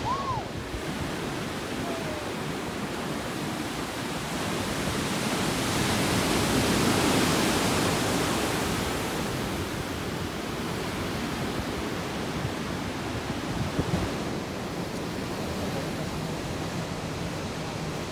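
Ocean surf breaking and washing up the beach: a steady rushing wash that swells louder about six to nine seconds in.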